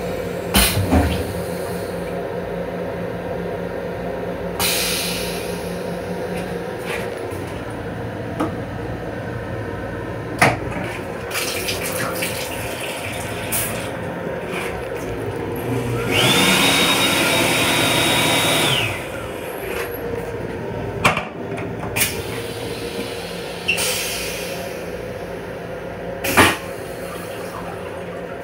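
Toilet of an M7 railcar flushing: a burst of rushing water lasting about two and a half seconds, a little past halfway. It sits over the steady running hum of the train, with scattered short knocks and clicks and a sharp knock near the end.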